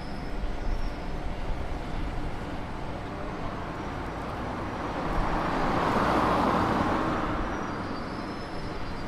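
City street ambience: a steady wash of traffic noise, with one vehicle passing by in the second half, swelling up and fading away over about three seconds.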